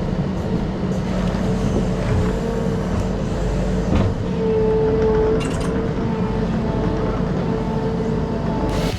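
A vehicle engine running steadily, getting a little louder about halfway through.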